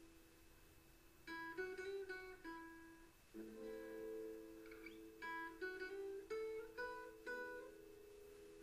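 Background music: plucked acoustic guitar notes over held lower chords.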